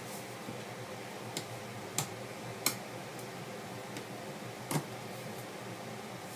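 A few light, sharp clicks over a steady hiss: a small tri-tip screwdriver and tiny screws being handled on a plastic cell phone while its case screws are taken out.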